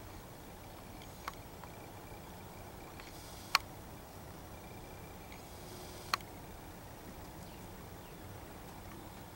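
Steady quiet outdoor background broken by three sharp clicks, the middle one, about a third of the way in, much the loudest, with a few fainter ticks between them.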